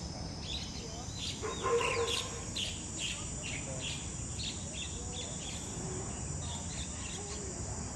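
Steady high insect drone with a string of short bird-like chirps, and one louder call about a second and a half in.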